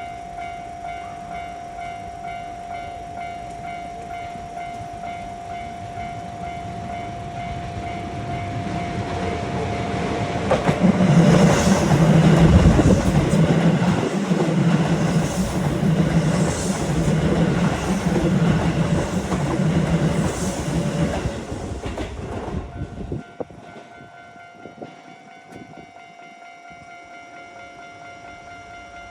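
Japanese level crossing warning bell ringing its repeated 'kan-kan-kan'. A Keisei electric train passes over the crossing from about a third of the way in, loud for about twelve seconds with rumbling and wheels clacking over rail joints, then fades, leaving the bell ringing on.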